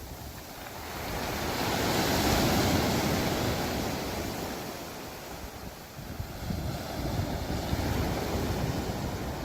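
Sea waves washing onto the shore: one rush swells to its loudest about two seconds in and ebbs away. Wind buffets the microphone, most from about six seconds in.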